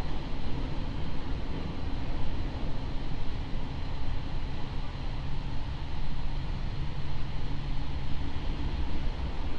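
JR East 701-series electric multiple unit running along the line: a steady rumble of wheels on rail and running gear, heard from inside the car, with a faint motor hum that fades near the end.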